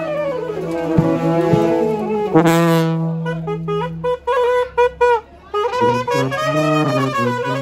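Saxophone playing with a street brass band of euphoniums and snare drums. The horns hold a long low note for about four seconds with a few drum hits. Then a line of short, clipped notes runs over a bass line that moves step by step.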